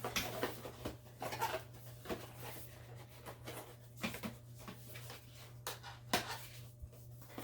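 Cardboard box and plastic packaging being handled: irregular rustling and clicking with a few sharper knocks, over a low steady hum.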